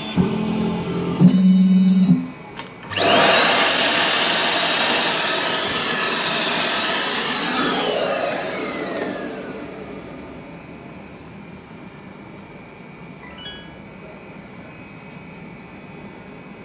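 High-speed spindle of a small CNC IC engraver spinning up about three seconds in with a loud whining hiss, then winding down with falling pitch and fading over a couple of seconds. A short low motor hum comes before it, and a few light clicks come near the end.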